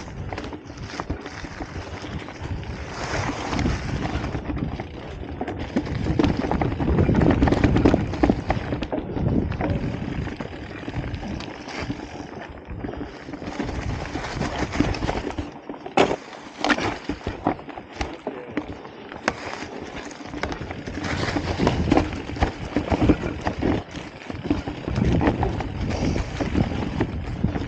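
Mountain bike riding over a rocky trail covered in dry leaves: a continuous rush of tyres crunching through leaves, with the bike rattling and sharp knocks as it hits rocks, the sharpest a little over halfway through.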